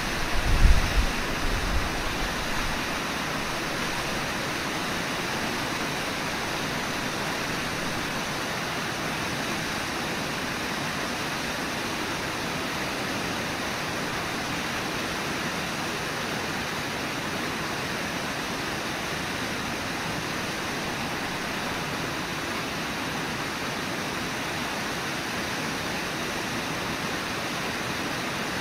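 Steady rushing of the Brooks River and falls. A low rumble of wind buffeting the microphone fades out over the first couple of seconds.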